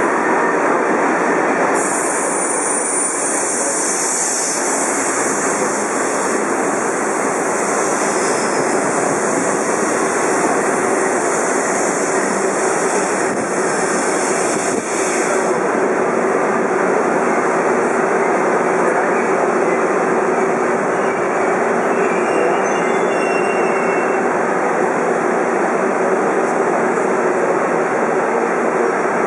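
Metro train standing at a station platform, its equipment running with a steady loud hum and hiss. A brighter high hiss joins from about two seconds in and stops about halfway through.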